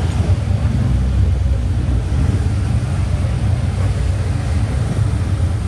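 Loud exhausts of classic Japanese cars with big-bore aftermarket mufflers, running at low revs as they roll past slowly. The sound is a low, uneven rumble that holds steady throughout.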